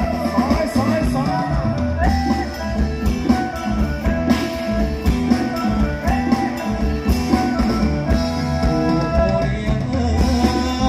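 Live band music played through a stage PA: electric guitars and a drum kit keeping a steady beat, with a singer over them.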